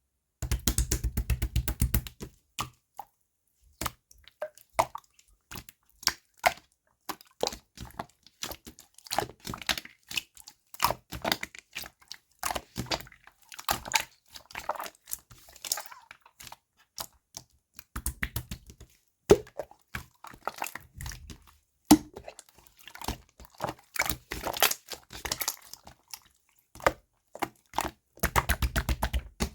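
Slime being squeezed, poked and folded by hand, making many sharp clicks and small pops. There are fast runs of crackling clicks near the start, about two-thirds through, and at the end.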